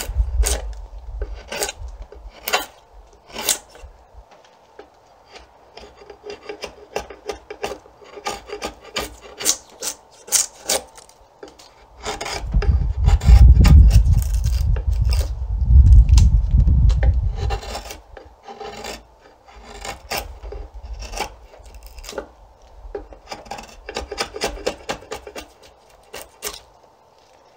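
Draw knife shaving and scraping the back of an Osage orange bow stave, a run of short cutting strokes peeling wood away down to a chosen growth ring. About halfway through, a loud low rumble lasts some five seconds.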